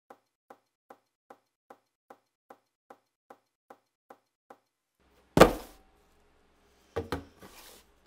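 A run of light, evenly spaced ticks, about two and a half a second, stops after about four seconds. About a second later comes a single loud knock, and near the end a shorter clatter.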